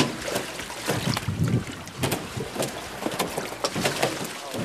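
Carp being pulled from a net into an aluminium boat: irregular knocks and thuds of fish and gear against the metal hull, over a steady hiss of wind.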